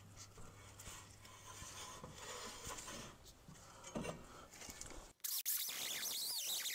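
Metal scraping and light clinks of a brake disc rotor being worked by hand on the wheel hub, with a single clank about four seconds in. Near the five-second mark the sound breaks off and a louder, high warbling sound takes over.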